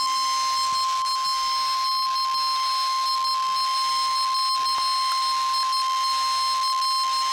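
NOAA Weather Radio 1050 Hz warning alarm tone: one steady, unbroken, high electronic tone. It is the attention signal that comes before a severe thunderstorm warning is read.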